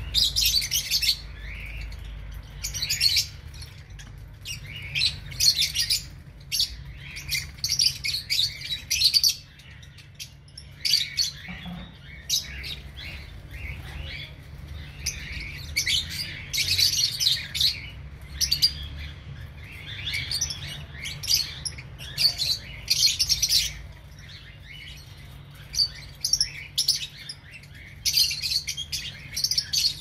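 A flock of lovebirds chirping and chattering, with short high-pitched calls coming in quick, overlapping clusters and brief lulls between them.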